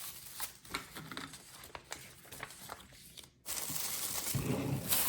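Packaging being handled and unwrapped: a run of short crinkles and small tearing sounds, cutting out briefly about three and a half seconds in, then a denser, steadier rustle.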